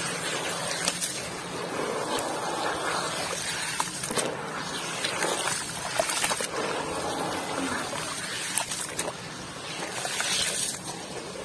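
Hands squeezing and crumbling gritty mud chunks in a tub of muddy water: continuous sloshing, squelching and trickling, with scattered small gritty crackles.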